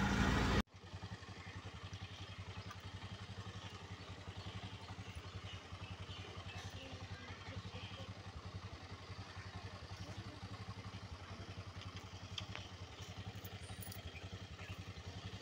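Auto-rickshaw engine idling steadily with a fast, even low pulse, with a few light clicks here and there.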